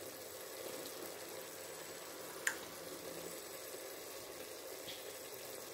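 Chicken pieces and vegetables simmering in their juices in a steel pot on the stove, a faint steady bubbling. One short click comes about two and a half seconds in.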